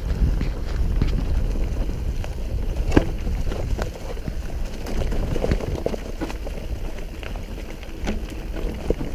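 Mountain bike descending a rough, stony, leaf-covered dirt trail at speed: steady wind rumble on the microphone, with the tyres crunching over leaves and stones and frequent clicks and knocks of the bike rattling over bumps. A sharper knock comes about three seconds in.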